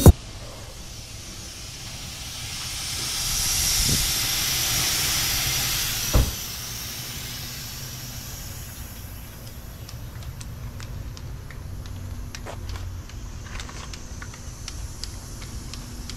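Compressed air hissing: it swells over a couple of seconds, holds, and ends with a thump. Light clicks and taps follow over a steady low hum.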